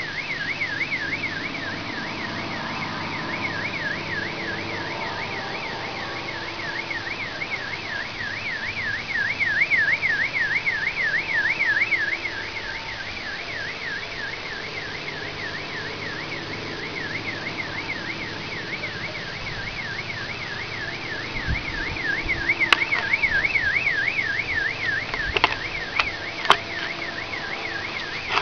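Car alarm siren sounding continuously, its high tone warbling up and down several times a second, over a steady low background rumble. A few sharp clicks come near the end.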